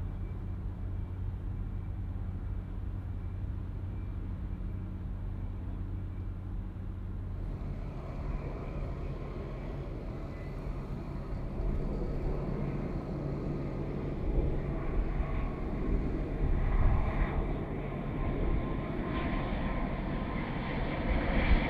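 Jet airliner's engines growing steadily louder as the aircraft comes closer, the noise building from about seven seconds in and swelling loudest in the last third.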